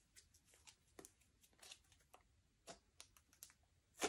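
Slime being mixed: faint sticky clicks and small squelching pops, a few a second, with one sharper, louder pop near the end.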